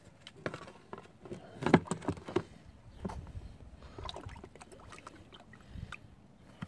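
Gasoline sloshing in a clear plastic tub as an aluminium GY6 cylinder head is set into it for a soak, with irregular knocks and thuds of the metal head and the tub being handled.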